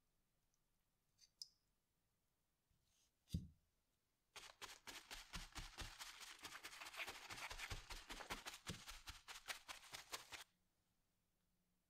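A wad of paper towel scrubbed quickly back and forth over a wet stainless steel knife blade lying on paper, a dense run of rapid rubbing strokes lasting about six seconds and stopping abruptly. A single thump comes shortly before the scrubbing starts.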